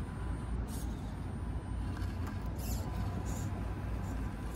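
Axial SCX24 micro crawler with a PN Racing 90-turn 130 brushed motor creeping slowly up rocks, its motor and gears whirring faintly and its tires scraping on stone in a few short crackles. A steady low rumble runs underneath.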